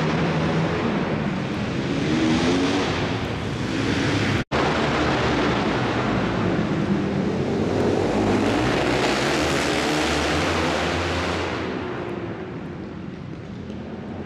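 Pack of flat track racing motorcycles running around a dirt oval, their engines rising and falling in pitch as they pass. The sound cuts out for an instant about four and a half seconds in, then the engines carry on.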